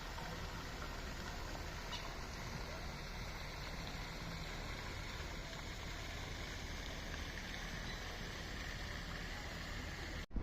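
Steady low rumble and hiss of outdoor background noise, with no distinct event; it cuts off abruptly just before the end.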